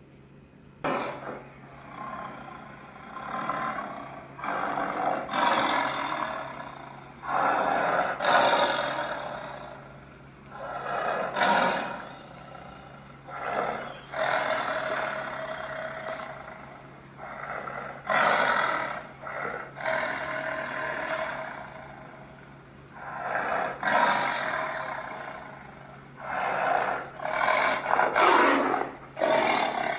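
Tiger roaring and growling, a string of about a dozen rough roars, each a second or two long, with short pauses between them.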